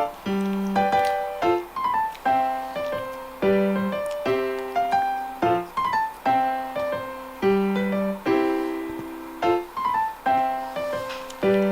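Background piano music: a gentle, rhythmic melody of struck notes over a repeating low bass note.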